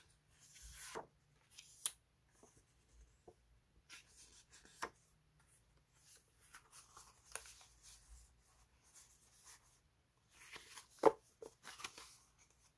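Sheets of paper label stickers being handled: rustling and sliding against each other, with small taps as they are picked up and laid down, and one sharper tap near the end.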